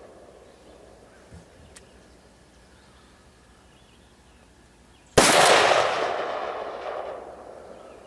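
A single rifle shot about five seconds in, a sharp crack followed by a long rolling echo that dies away over about three seconds. It is a miss on the Tannerite target, which does not go off.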